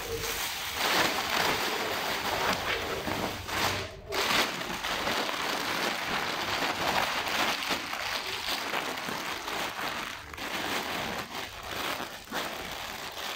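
Thin plastic shopping bags rustling and crinkling as they are handled and opened, with a brief pause about four seconds in.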